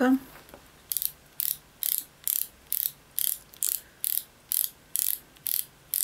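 The take-up wheel of the retractable tape measure on a Fiskars sewing multi-tool being turned by hand to wind the tape back in. It gives a short ratcheting rasp with each turn, a little over two a second, starting about a second in.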